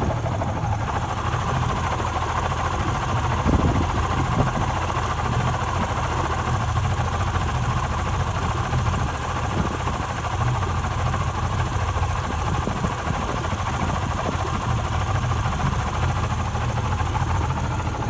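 Yamaha 60 hp two-stroke outboard motor running steadily: the sound of its worn-out, "dead" bearings.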